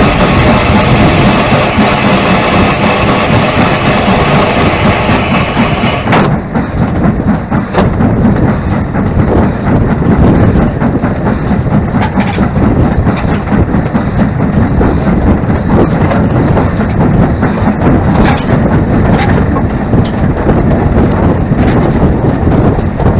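GWR King class four-cylinder 4-6-0 steam locomotive 6023 'King Edward II' running along the line, heard from the side of its cab as a loud, steady rush of running noise. About six seconds in the sound thins out and a regular beat of about two a second comes through.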